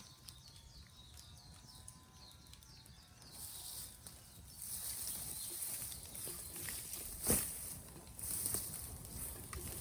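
Bonfire of raw green bamboo crackling, with scattered sharp pops; one loud pop about seven seconds in. A high hiss comes in about halfway through.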